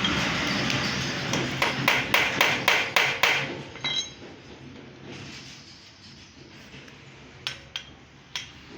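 A hammer striking a hand impact driver: a quick run of about eight sharp metal blows, roughly four a second, to break loose a tight factory-fresh screw on a motorcycle engine case. A short metallic ring follows, then a few light clinks of tools near the end.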